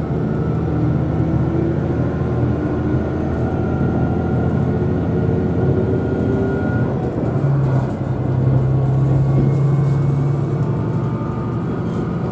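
Diesel railcar running, a steady low engine drone with a few level humming tones that swell a little past the middle, heard from inside the passenger cabin.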